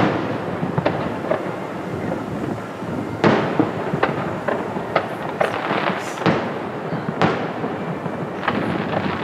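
Aerial fireworks shells bursting: a string of sharp booms, the loudest right at the start and another a little over three seconds in, with crackling between them.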